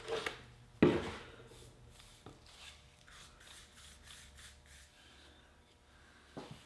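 Shellac being applied to a wooden ash handle: soft, repeated rubbing strokes on the wood. A sharp knock about a second in is the loudest sound.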